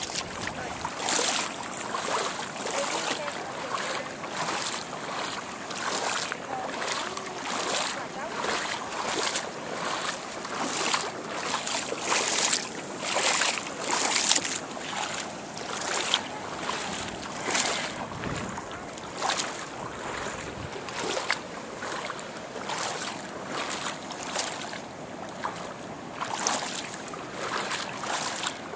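Footsteps wading through shallow water, a splash or slosh about once a second.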